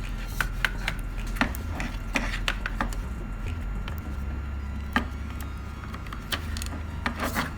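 Irregular small clicks and taps as a laptop hard drive's connector cable is worked loose by hand, over a low steady hum.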